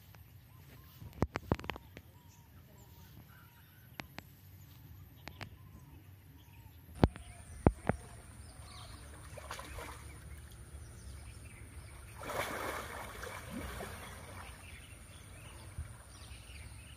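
Muddy pond water sloshing and splashing as a wild Asian elephant moves and works its trunk in it, with a burst of splashing about twelve seconds in. A few sharp knocks stand out, the loudest a cluster of three about seven seconds in, over a steady low rumble and faint bird chirps.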